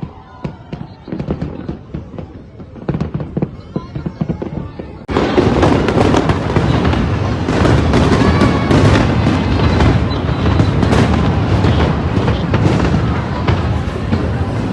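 Fireworks going off: scattered sharp pops and cracks at first, then about five seconds in a sudden jump to a loud, dense run of bangs and crackling.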